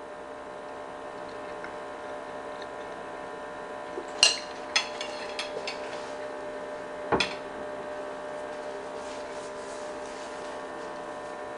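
A fork clinking against a plate: one sharp clink about four seconds in, a few light ticks just after, and another clink about seven seconds in, over a steady low hum.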